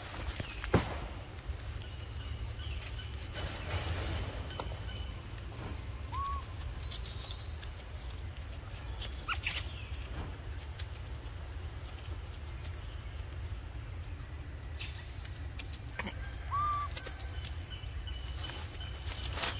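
Outdoor woodland ambience: a steady low rumble with a thin, steady high tone over it, scattered light clicks and taps, and two short high calls about ten seconds apart.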